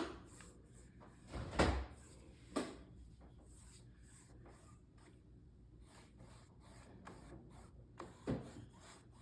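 Quiet rubbing of a paintbrush on canvas, broken by a few soft knocks, the loudest about a second and a half in and another near the end.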